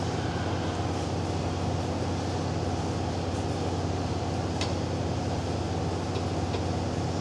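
Steady humming drone of the gym's ventilation units, with a faint short tick about four and a half seconds in.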